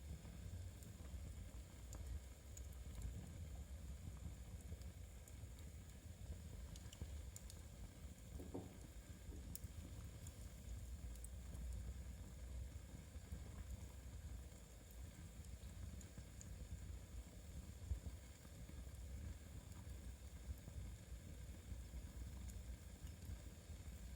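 Faint crackle and hiss of a wood fire in a fireplace over a low steady rumble, with scattered light clicks.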